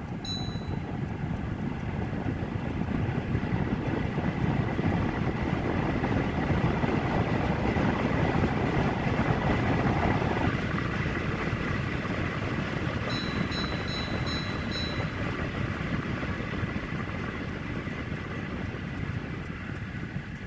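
Winix Tower Q air purifier's fan running with a steady rush of air, and a repeated ticking from inside the unit, a fault in this unit at its top fan speed. A beep from the control panel comes right at the start, the fan grows louder over the first few seconds and drops suddenly about ten seconds in, and five quick beeps follow a few seconds later.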